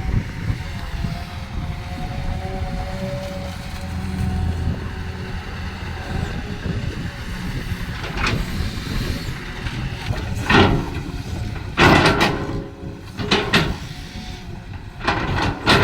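Excavator engine running steadily with faint squealing tones, then, from about halfway through, several loud sudden clanks and scrapes, typical of the bucket striking and dragging through the ground.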